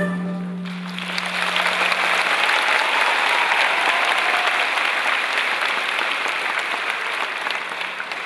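Large audience applauding as the orchestra's last note dies away, a low held tone fading out over the first two seconds. The applause swells within the first second, holds steadily, and tapers off near the end.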